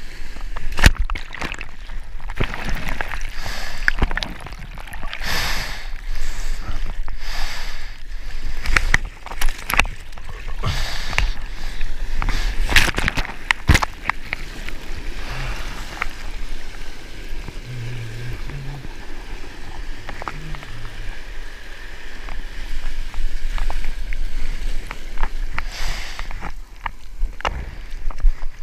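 Whitewater from a small broken wave rushing and splashing close around a surfboard as it rides the foam into the shallows, with many sharp splashes throughout.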